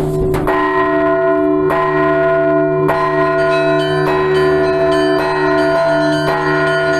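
Russian Orthodox church bells ringing together: several bells struck in a steady rhythm, with a new strike about every second, over the long deep hum of a large bell.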